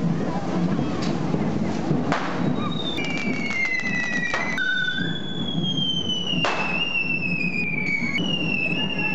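Correfoc fireworks: devils' hand-held carretilles spitting sparks, with three sharp bangs about two, four and a half and six and a half seconds in. From about three seconds in, high whistles slide slowly downward over a steady low din.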